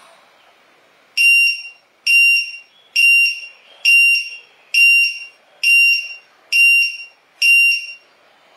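Matek lost-model finder's piezo buzzer sounding its alarm: eight loud, high-pitched beeps, about one a second, starting about a second in.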